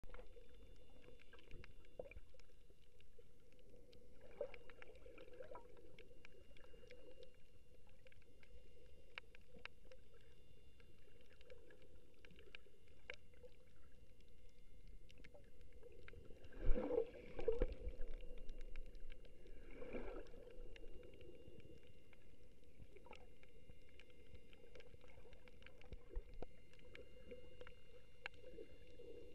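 Muffled underwater ambience picked up by a submerged camera: a steady hum and low wash of noise, sprinkled with small clicks and crackles. A little past halfway there is a louder burst of knocks and rushing water, with a smaller one a few seconds later.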